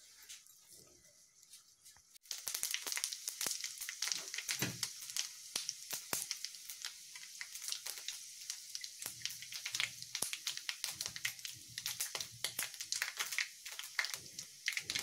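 Dried red chillies and panch phoran seeds frying in hot oil in a kadai for a tempering. After a quiet first two seconds, a dense, steady crackling sizzle sets in.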